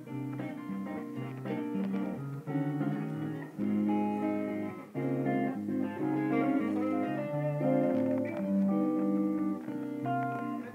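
Two electric guitars jamming through small practice amps, playing chords under quick melodic lines, with a few dips in level.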